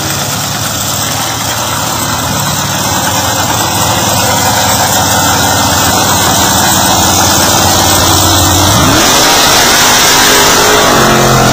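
Lifted mud truck's engine revving hard as it ploughs through a mud pit, growing louder as it comes close, with a rising rev near the end.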